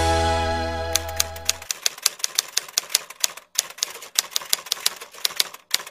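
The song's last sustained keyboard chord fades out over the first second or two, then a typewriter key-clicking sound effect starts about a second in: a quick, uneven clatter of typing.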